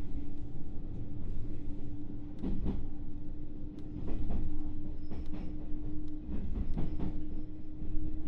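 JR 221 series electric train running at speed, heard from inside the motor car: steady wheel and track rumble with a constant whine, and several sharp clacks from the wheels crossing rail joints.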